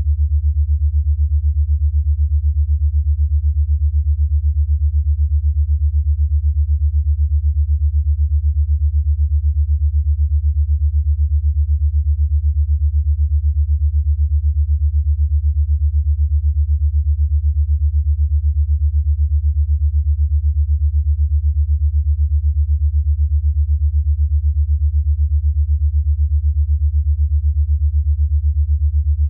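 A steady, low synthesized sine tone that pulses rapidly and evenly: an 8 Hz alpha-wave beat tone for brainwave entrainment.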